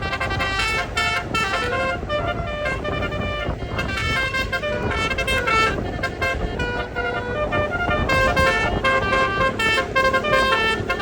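Bus 'telolet basuri' musical air horn playing a tune of quick stepping notes, over a steady low rumble.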